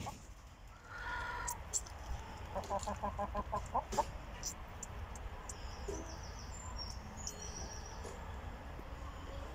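A gamefowl rooster clucking: a short call about a second in, then a quick run of clucks, about seven a second, for about a second. A steady low rumble runs underneath, with a few sharp clicks and faint high chirps later.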